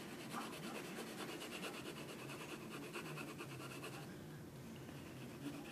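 Rapid back-and-forth scribbling of a drawing tool on paper, like shading or colouring in, which stops about four seconds in.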